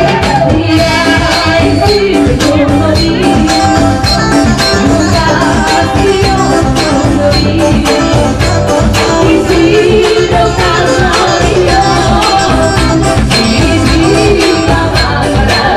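Loud music for the Batak tortor dance: a steady percussive beat under a wavering melody line.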